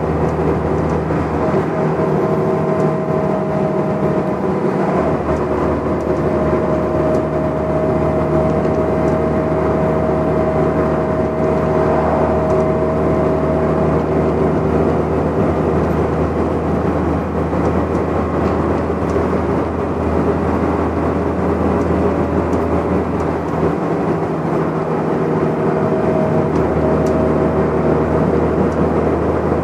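Volvo Olympian double-decker bus heard from inside its passenger saloon while cruising at speed: steady engine and road noise with a steady whine over it. The low engine drone drops away briefly twice, about two seconds in and again near the end.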